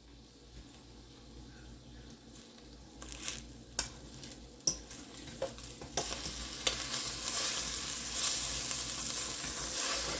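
Scrambled eggs with steak and bell pepper sizzling in a Dutch oven, with a few knocks and scrapes of a utensil against the pot. The sizzle is faint at first and grows louder from about six seconds in.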